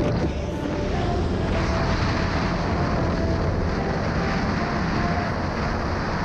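Motorcycle riding, with steady heavy wind noise buffeting the microphone over the running engine.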